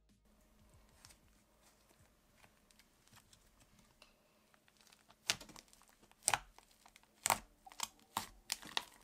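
Butter slime made of glue slime mixed with clay, pressed and poked with fingertips, giving sharp pops and crackles about once a second from about halfway in, coming faster near the end. Before that there are only faint soft sounds as the slime sags and folds.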